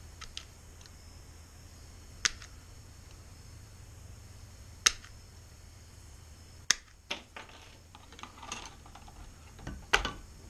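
Aviation snips cutting hexagonal grille mesh: sharp single snips spaced a couple of seconds apart, then rustling as the mesh is handled and a sharp clack near the end.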